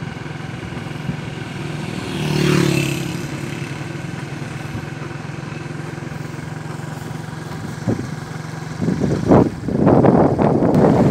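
Motorcycle engine running steadily underneath, heard from on the moving bike. About two seconds in there is a brief louder swell, and near the end a loud rough rushing noise takes over.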